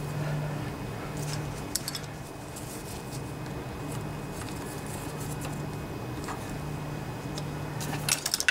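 Scattered small clicks and taps of hands fitting parts on a small engine, with a quick run of sharper clicks near the end, over a low steady hum.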